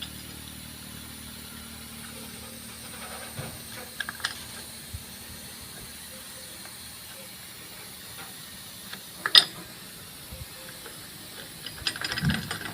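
Scattered light metallic clicks and clinks of motorcycle clutch parts being handled and fitted into the clutch housing, over a steady faint hiss. The sharpest click comes about nine seconds in, with a few quicker clicks near the end.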